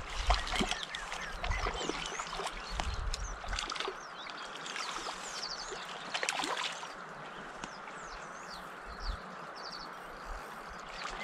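Small birds chirping and trilling over a steady rush of flowing river water. Low knocks and rumbles in the first few seconds, then they fade.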